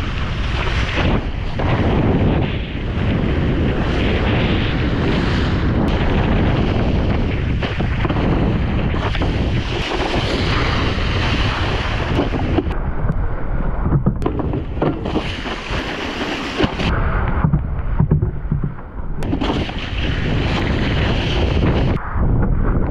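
Wakeboard planing across the water, its spray hissing and splashing, with heavy wind buffeting the action camera's microphone. The hiss eases briefly twice in the second half, then comes back.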